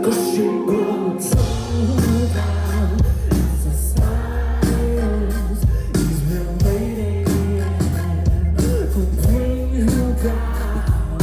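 A band playing live, heard from the crowd: a male voice sings over the band, a deep bass line comes in about a second in, and drum hits run through it.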